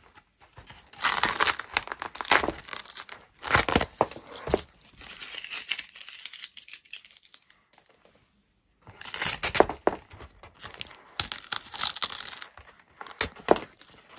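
Adhesive tape being peeled off a foam model-plane wing in a series of short rips, with a brief pause about eight seconds in.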